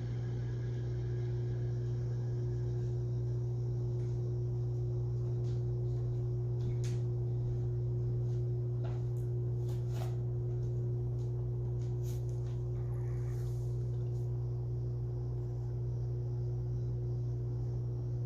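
HVAC outdoor unit running with a loud, steady deep hum, a fainter higher tone above it, and a few faint ticks.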